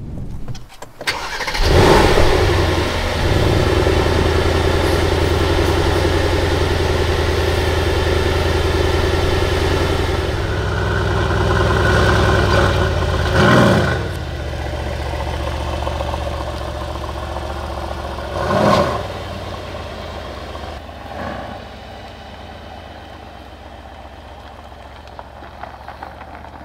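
Mercedes-AMG GLC63 S Coupe's 4.0-litre twin-turbo V8 started up about two seconds in, with a loud start-up flare settling into a steady high idle. The throttle is blipped sharply twice, then once more lightly, before the car pulls away and the exhaust sound drops off.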